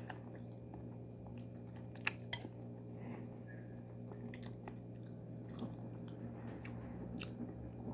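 A person chewing food, with a few sharp clicks about two seconds in, over a steady low hum.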